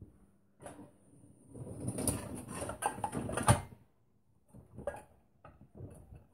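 A dishwasher's wire rack being moved by hand, rolling and rattling with the pans loaded in it for about three seconds, then a few light knocks.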